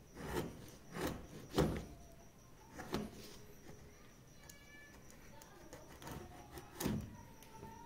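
A hand carving chisel cutting into a wooden board in short strokes: five sharp scraping cuts through the grain, the loudest about a second and a half in.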